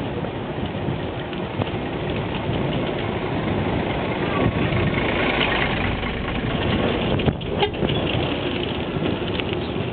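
City street traffic heard from a moving bicycle: a steady rumble, with the diesel engine of a stopped double-decker tour bus idling as the bike passes close by it. Two short knocks come about seven seconds in.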